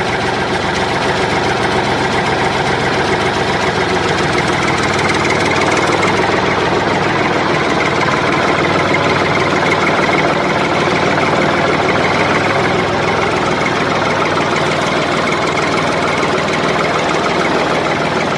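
Engine-like running sound of a miniature toy tractor as it drives, a steady unbroken mechanical drone.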